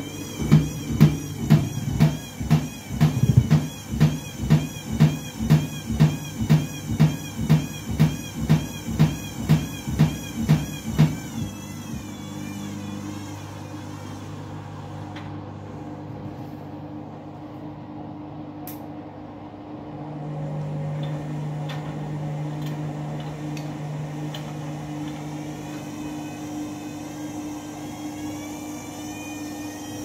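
Candy front-loading washing machine turning its drum during an intermediate spin, with a rhythmic thump about twice a second and a wavering motor whine. The thumping stops about eleven seconds in and gives way to a steady motor hum, which grows louder about twenty seconds in. The owner says the machine is playing up and suspects a suds lock.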